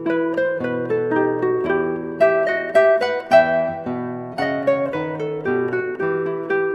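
Background music: a quick melody of plucked string notes over a lower moving bass line.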